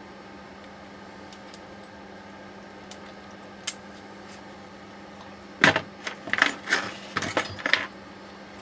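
Metal parts and tools being handled during steering rack disassembly: a single click, then a quick run of several knocks and clanks over about two seconds, over a steady hum.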